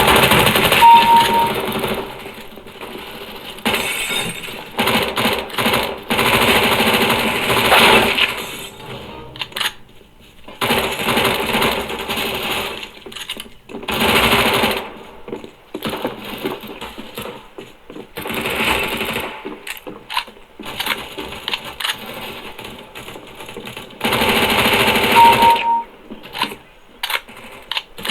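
Loud music played back through a KitSound Hive X 20 W Bluetooth speaker as a sound test, coming in busy surges and dips. A short high beep sounds about a second in and again near the end.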